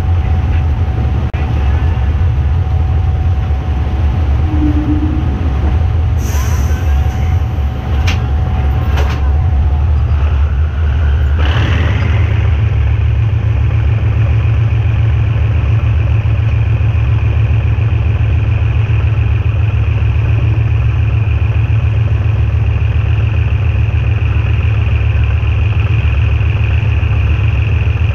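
GE diesel-electric locomotive's engine running loud and steady during shunting, with a few sharp clicks partway through. About twelve seconds in, the engine note rises and settles at a higher, heavier steady run as the locomotive takes power.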